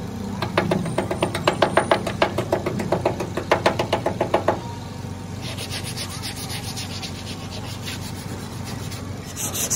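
Hand-tool work on a truck body. First comes a quick, regular run of strokes, about five a second, for about four seconds. Then a lighter, faster, higher rasping rub follows for about four seconds.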